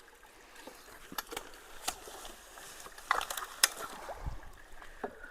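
Scattered sharp knocks, crunches and light sloshing as wet leaves and sticks are pulled out of a clogged culvert, a handful of sudden sounds at uneven intervals, loudest about three seconds in.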